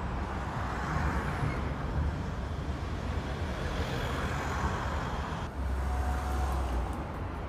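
Outdoor street traffic noise: a steady low rumble of vehicles with a noisy haze over it, changing abruptly about five and a half seconds in.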